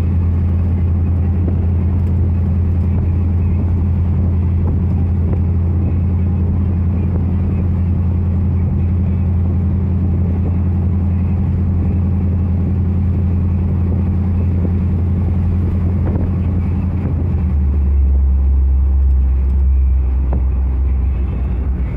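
LS-swapped Chevrolet S10's V8 engine and exhaust droning steadily under way, heard from inside the cab. About three-quarters of the way through, the engine note steps down to a lower pitch and gets slightly louder.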